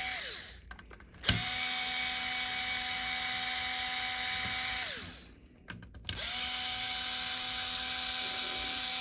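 Small electric screwdriver backing out screws: its motor whine winds down just after the start, then runs twice more for about three and a half seconds each, the pitch falling away each time it stops. A few light clicks fall in the pauses between runs.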